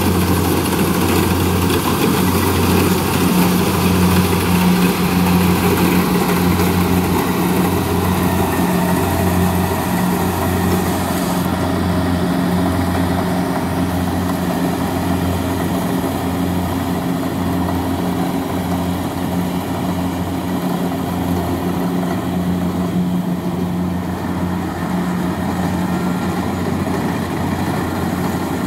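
Kubota rice combine harvester's diesel engine running steadily while cutting rice, a low drone with a regular throb about once a second. It grows slightly quieter as the machine moves away.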